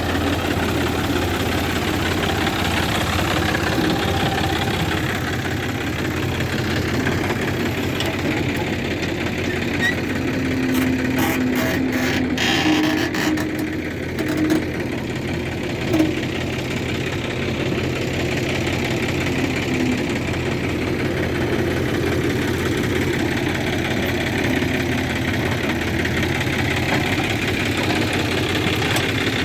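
Heavy diesel engine running steadily, with a few short knocks near the middle.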